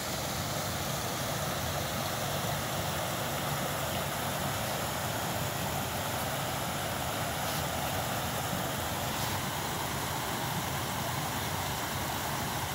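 Shallow rocky creek rushing steadily over a riffle of small rapids.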